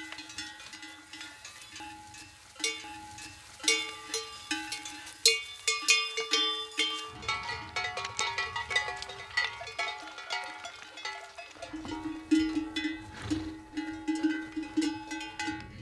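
Many animal bells clanking and ringing irregularly, the bells of a herd of horses on the move.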